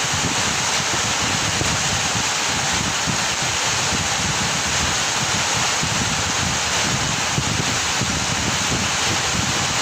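Heavy rain falling steadily: a dense, even hiss with a flickering low rumble underneath.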